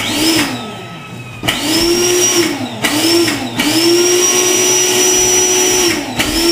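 Electric air-mattress pump motor whining up to speed and winding down as it is switched on and off several times, then running steadily as it inflates the mattress, with a brief dip and restart near the end.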